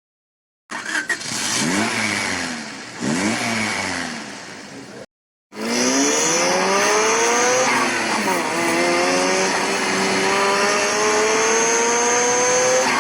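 Car engine sound effect: an engine revving up and down twice, then after a short break it accelerates with a steadily rising pitch, drops once as if changing gear about eight seconds in, and climbs again.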